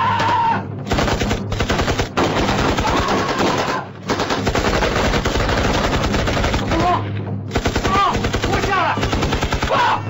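Heavy rapid gunfire in long bursts, with short breaks about four seconds in and again near seven and a half seconds, and shouting over it near the end.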